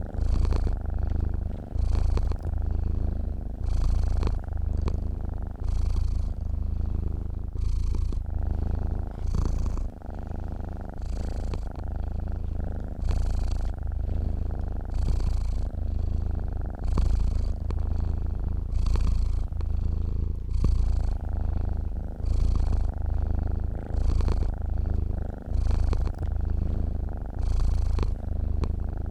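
A sleeping domestic cat purring: a deep, steady purr that swells and eases with each breath, about every second or two.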